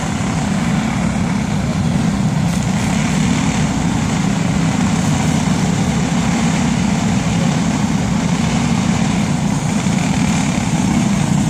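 A pack of racing go-karts with Briggs & Stratton Animal four-stroke single-cylinder engines, running together in a steady drone.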